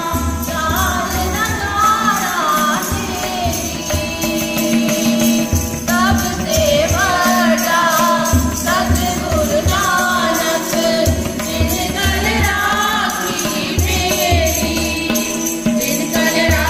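A group of women singing a devotional hymn together to harmonium accompaniment, with tabla and a jingling hand-held percussion instrument keeping time.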